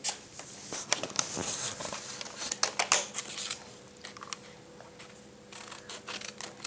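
Small blunt-tipped children's scissors snipping through a folded paper airplane, with short blade clicks and paper crinkling, busiest in the first three seconds and again near the end.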